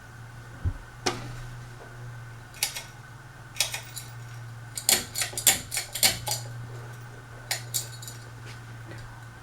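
Hampton Bay Maplewood ceiling fan motor humming steadily, while a pull chain rattles and the speed switch clicks in a string of sharp metallic clicks and jangles, thickest about halfway through, as the fan is put through its speeds.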